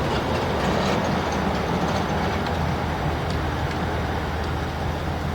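Steady low mechanical rumble with a constant hum, unchanging throughout.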